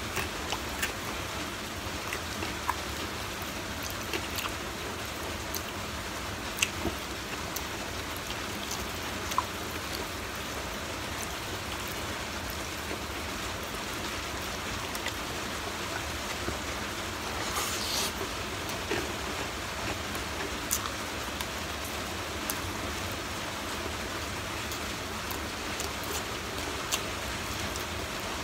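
Fried chicken being eaten by hand: scattered small clicks and crunches of chewing and tearing meat, with a longer crackle about 18 seconds in, over a steady hiss.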